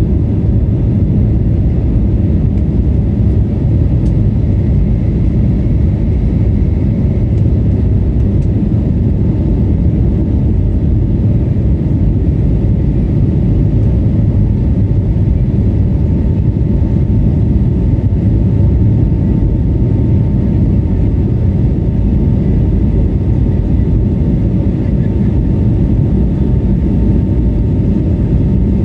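Airbus A320neo's Pratt & Whitney geared turbofan engines running, heard inside the cabin as a loud, steady low rumble. A faint steady tone joins about halfway through.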